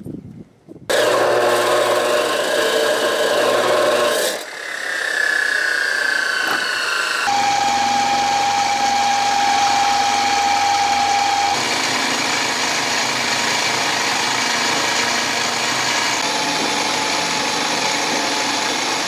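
An abrasive chop saw cutting through a metal bar, its pitch falling as it winds down. Then a mini mill's motor runs while an end mill cuts a channel in the bar, the noise changing abruptly several times.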